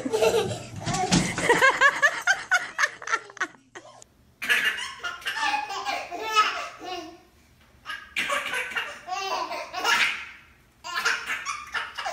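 A baby laughing in several bouts, with short pauses between them.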